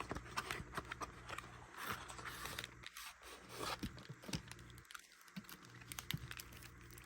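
Trading card starter deck's packaging being torn open and handled: tearing and crinkling of the wrapping with many light clicks and taps.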